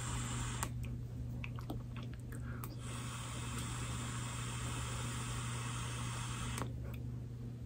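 Air hissing through an Aspire AVP Cube pod vape with its airflow fully open as it is drawn on: one stretch of hiss ends under a second in and a second long draw runs from about three to six and a half seconds in, with a few small clicks in between. A steady low hum lies beneath.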